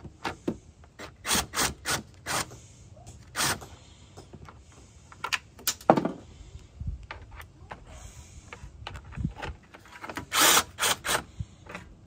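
Cordless impact driver with a 10 mm socket, run in short bursts as it loosens and backs out the radiator cooling fan's mounting bolts. The bursts come scattered, with the longest and loudest cluster near the end.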